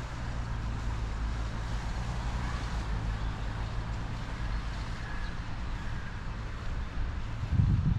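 Steady low hum of motor traffic with an even background hiss. A louder low rumble starts suddenly near the end.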